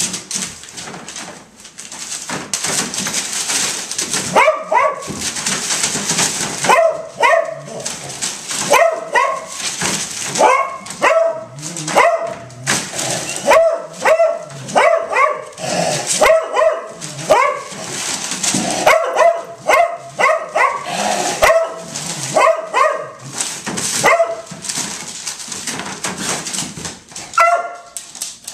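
Beagle puppies yipping and barking over and over in short, high calls, starting a few seconds in and going on at about one or two a second. Newspaper crinkles and rustles under their scrabbling paws throughout.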